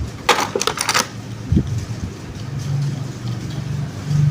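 A quick run of sharp clicks and rattles, then a single low thump, over a low steady hum.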